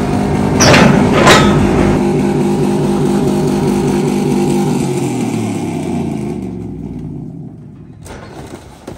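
An engine running, its pitch slowly falling and fading out over several seconds. Two sharp loud hits come about a second in.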